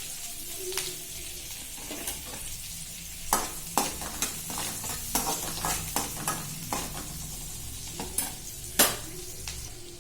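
Chopped onions, green chillies and curry leaves sizzling in hot oil in a kadai, stirred with a spoon. From about three seconds in, the spoon clicks and scrapes against the pan many times.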